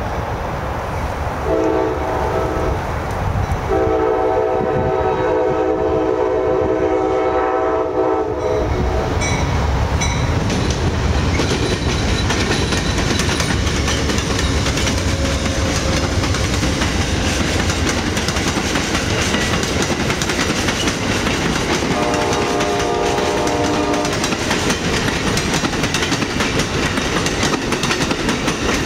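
Amtrak passenger train with two GE P42 Genesis diesel locomotives passing close by. The horn sounds a multi-note chord, a short blast about two seconds in and a long one lasting until about eight seconds in. Then the locomotives' diesel engines rumble past and the passenger cars roll by with wheels clicking over rail joints, with another short horn blast a little past twenty seconds.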